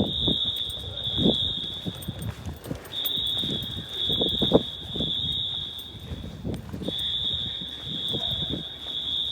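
Wheelock AS fire alarm horns on a Notifier system sounding a loud, steady high-pitched tone, echoing in a parking garage. The tone runs in long stretches broken by a short gap about every four seconds, with irregular thuds underneath.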